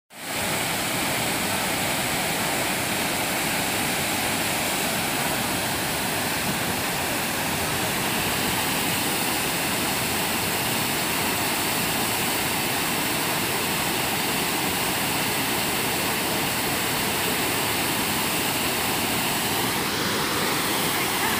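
Dhuandhar Falls on the Narmada River, a broad cascade over marble rock, giving a steady, unbroken rush of falling water.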